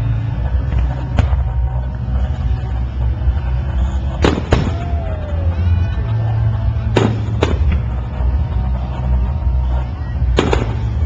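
Aerial fireworks shells bursting: sharp bangs about a second in, a close pair after four seconds, two more near seven seconds and a pair near the end, over a steady low rumble.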